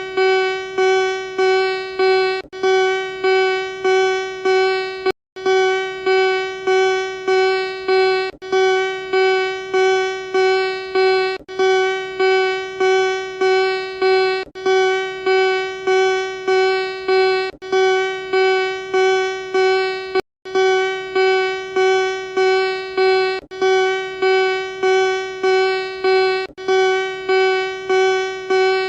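Emergency alert alarm: a single steady electronic tone that pulses about twice a second, each pulse fading, broken by a short gap about every three seconds.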